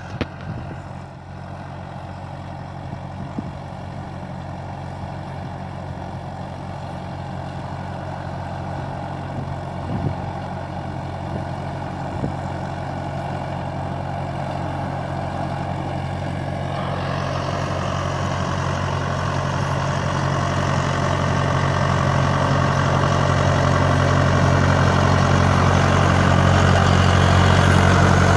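Tractor engine running steadily at a constant pitch, growing gradually louder throughout. From a little past halfway, a broader rushing noise joins in.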